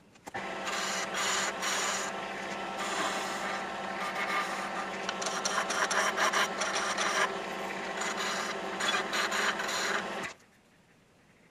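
Wood lathe spinning a segmented pen blank between centres while a chisel cuts it. A steady motor hum runs under an uneven scraping hiss from the cut. The sound starts just after the beginning and cuts off suddenly about a second before the end.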